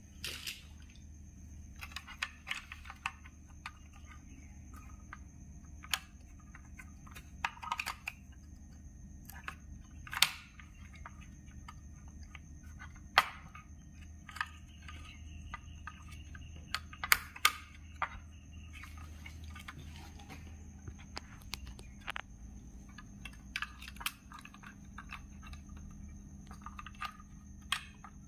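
Irregular clicks, taps and small knocks of plastic and metal parts being handled inside an opened moulded-case circuit breaker on a metal tray, a few of them louder, over a steady low hum.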